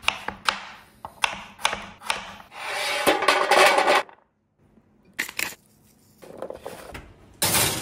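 Chef's knife chopping butternut squash on a cutting board: about five sharp knocks roughly half a second apart. Then a stretch of dense clattering as the diced squash cubes land on a metal baking sheet, followed after a pause by a few more knocks and a brief noisy burst near the end.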